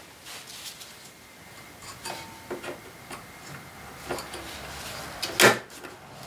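Scattered light clicks and clinks of hand tools and small metal parts being handled during a snowmobile drive-shaft bearing job, with one louder sharp clank about five and a half seconds in.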